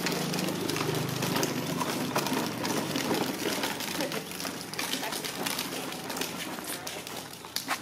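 Plastic wheels of a toddler's push ride-on car rolling over hexagonal paving stones, a steady noise with many small clicks.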